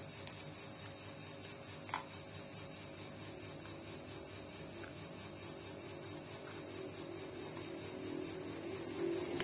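Rubbing and scraping as glue residue is cleaned off a sewing machine part, with one sharp click about two seconds in; the rubbing grows louder near the end.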